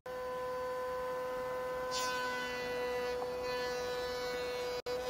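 Router in a router table running at full speed with a steady high whine, as a maple board is fed past an 8-sided birdsmouth bit on a light clean-up pass. A hiss is added from about two seconds in as the bit cuts, and the sound drops out for an instant near the end.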